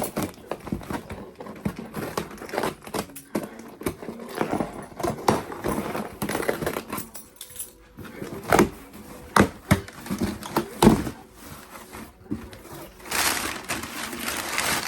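A package being opened by hand: crackling and rustling packaging with a string of sharp knocks and clicks, and a longer stretch of crinkling about 13 seconds in.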